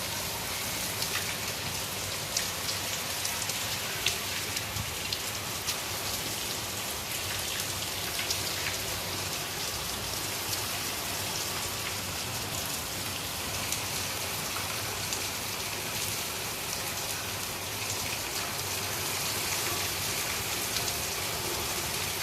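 Heavy rain falling steadily, a dense hiss with many individual drops ticking sharply on surfaces.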